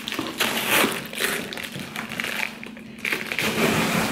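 Cardboard shipping box being torn and pulled open by hand: rough tearing and scraping in two spells, the first about half a second in, the second about three seconds in.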